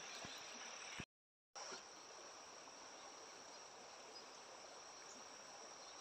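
Near silence, with a faint, steady, high-pitched insect trill, like crickets, over low outdoor hiss. The sound drops out completely for about half a second, about a second in.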